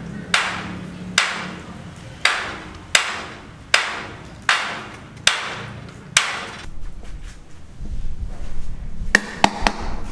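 Steady hammer blows, about one every 0.8 seconds, each ringing briefly. They stop about six and a half seconds in, giving way to a low rumble and a couple of sharp knocks near the end.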